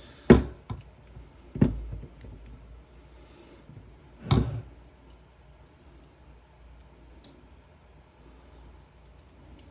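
Clicks and knocks from hands handling a rifle and its weapon-light cable and fittings. There are three louder knocks, one right at the start, one at about a second and a half and one at about four and a half seconds, with faint scattered ticks between them. The second half is mostly quiet.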